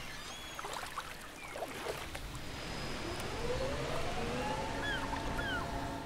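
Small waves lapping on a sandy shore, a steady wash of water, with a few short bird chirps. From about halfway a low tone rises and then holds steady.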